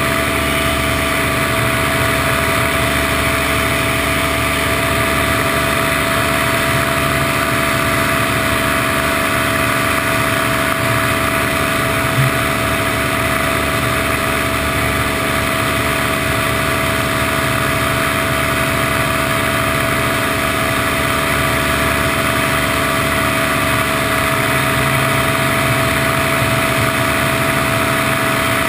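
Paramotor engine and propeller running at a steady throttle in flight, an even drone with unchanging pitch. One short knock near the middle.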